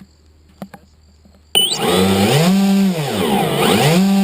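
A model aircraft's electric motor and propeller start with a jump about a second and a half in, then run loud with a buzzing pitch that is throttled up and down twice.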